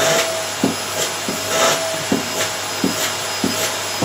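Vacuum cleaner running on carpet, a steady motor whine over a low hum. Swishing noise swells and fades as it is worked over the floor, with short light knocks every half second or so.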